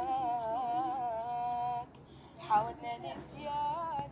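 A woman singing an Arabic song, holding a long wavering note that breaks off about two seconds in, then starting a new short sung phrase near the end.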